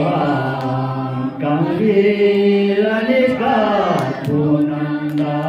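A man singing unaccompanied into a microphone: a slow, chant-like melody of long held notes that slide between pitches, with short breaks between phrases.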